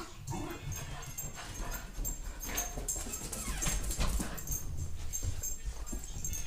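A dog whimpering.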